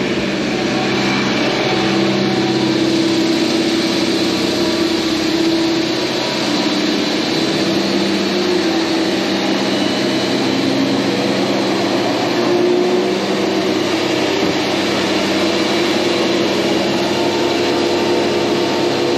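Generator engine running steadily, supplying power during a power outage.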